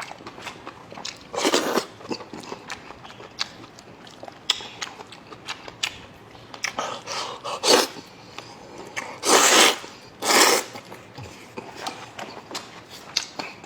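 Close-up eating sounds from a person eating noodles in a thick sauce: wet chewing with many small mouth clicks, and four louder bursts of about half a second each, spread through.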